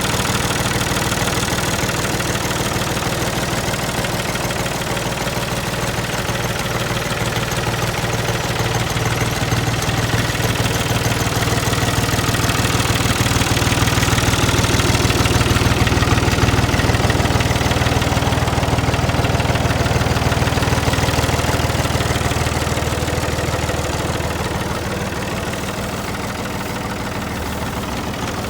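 Oliver 1365 farm tractor engine idling steadily, growing a little louder through the middle and easing off near the end.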